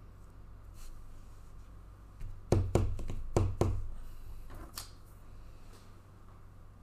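Hands handling trading cards and packs on a tabletop: scattered light clicks, then four sharp knocks in two quick pairs about halfway through, over a steady low hum.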